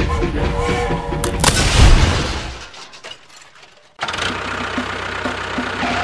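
Background music, broken about a second and a half in by a loud crash that dies away over the next two seconds; the music starts again about four seconds in.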